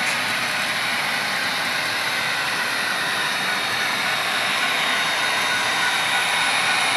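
HO scale model diesel locomotives running along the track with a steady whirring hiss, growing a little louder near the end as a locomotive passes close.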